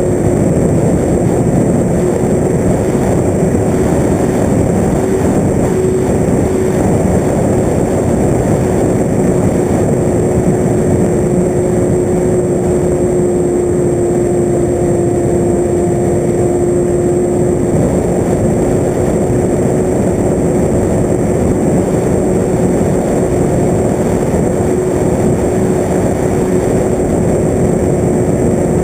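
FPV radio-controlled aircraft's motor and propeller running at a steady pitch over a dense rush of air noise. The pitch sags slightly about halfway through, then settles again.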